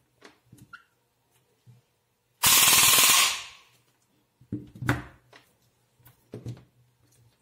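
Airsoft AEG split V2 gearbox with a ZCL High Torque motor, 18:1 gears and an M100 spring firing one full-auto burst of about a second on an 11.1 V LiPo, then winding down. Quieter handling clicks follow as the battery's T-plug connector is worked and pulled apart.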